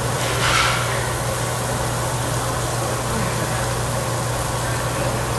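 Steady hum and rush of a barbecue table's overhead exhaust hood fan, with one short, louder sound about half a second in.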